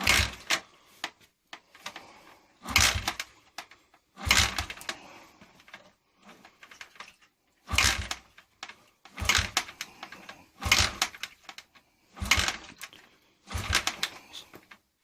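Honda XL100S single-cylinder four-stroke engine being kick-started from stone cold: about eight kicks, most about a second and a half apart, each a short mechanical clatter with a low thump. The engine does not fire.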